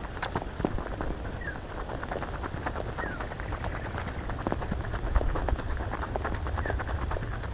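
Rapid crunching footsteps on a dirt bush track, played fast-forward, over a low rumble. A short falling bird chirp repeats every second or two.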